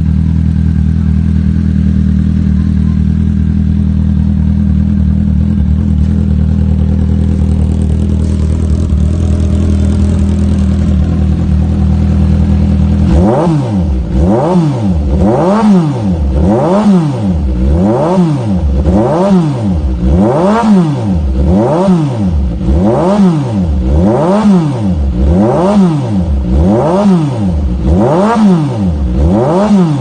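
Suzuki GSR 750's inline-four engine through an SC-Project full exhaust with the catalytic converter removed. It idles steadily, then a little under halfway through it is revved in repeated quick throttle blips, about one every second and a half, each a rise and fall in pitch.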